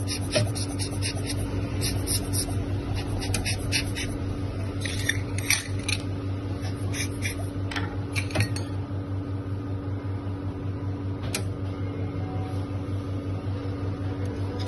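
Short puffs of air from a hand-squeezed rubber blower bulb blasting coffee grounds off the grinder burrs, several a second at first and fewer after about half-way, over a steady low hum.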